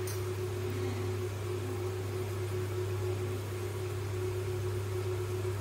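Steady kitchen hum: a constant low machine drone with a soft even hiss over it, unchanging throughout, as an uttapam cooks on a tawa over a lit gas burner.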